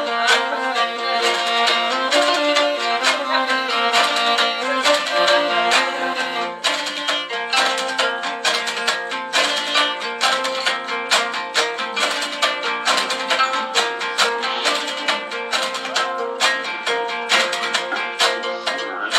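Instrumental folk music on traditional strings: a bowed Mongolian horsehead fiddle (morin khuur) holding long notes over a quick, even run of plucked notes from a dambura lute and a zither.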